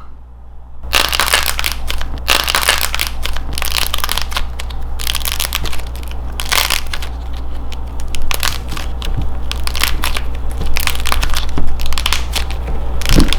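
A dried clay strawberry coated in nail polish being crushed, a dense run of crackling and crunching that starts about a second in and keeps going.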